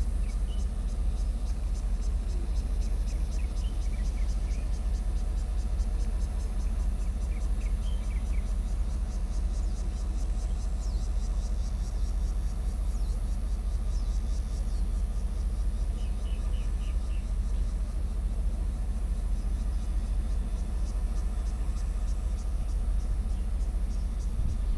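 Diesel-electric locomotive idling at a standstill, a steady low rumble. Over it, insects buzz in a fast high pulsing, with a few short bird-like chirps here and there.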